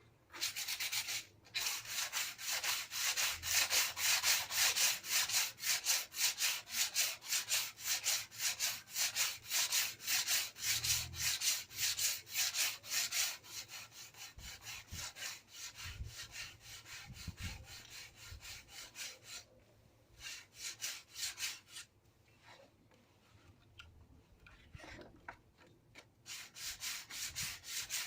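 Hand sanding, abrasive paper rubbed back and forth over the painted bodywork of a van cab to rub it down before respraying. Quick, even scraping strokes, several a second, loud for about the first half, then lighter and in shorter bouts with brief pauses.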